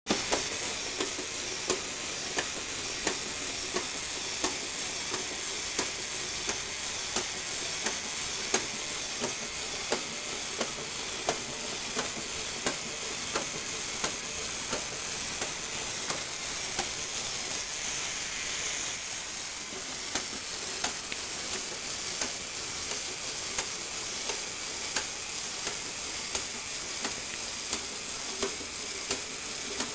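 Lego Technic walking robot running: the electric motor and plastic gears whir steadily while the legs tap on a wooden floor about once every 0.7 seconds.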